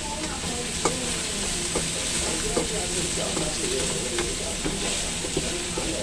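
Broccoli, carrot and garlic sizzling in oil in two woks while being stir-fried, with a spatula clicking and scraping against the pan now and then.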